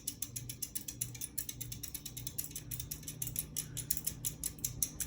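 52-inch Harbor Breeze Builders Best ceiling fan running, with rapid, even clicking of about ten a second over a low hum that swells and fades about twice a second.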